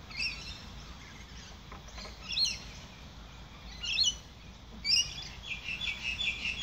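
A bird chirping: a few short separate chirps, then a quick run of chirps near the end, over a faint low steady hum.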